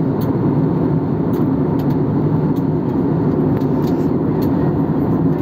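Steady cabin noise of an Airbus A320-family airliner in cruise: a constant low rush of jet engines and airflow, heard from a window seat inside the cabin.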